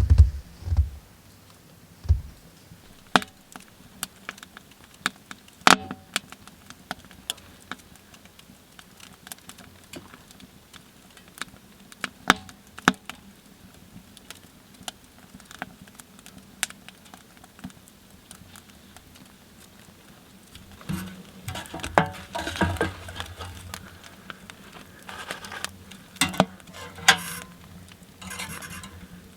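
Scattered sharp clicks and knocks, then a busier stretch of clattering and rustling from about two-thirds of the way through.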